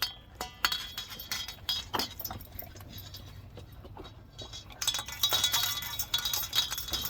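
Dogs eating from their bowls: repeated sharp clinks and clicks against the dishes, getting busier and louder from about five seconds in.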